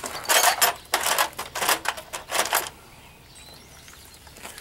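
Metal scraping and clicking from a hand tool being worked in a run of short strokes, stopping about two and a half seconds in.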